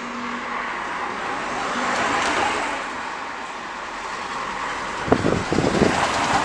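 Wind rushing past the microphone, swelling about two seconds in, then buffeting it with irregular low rumbling thumps near the end.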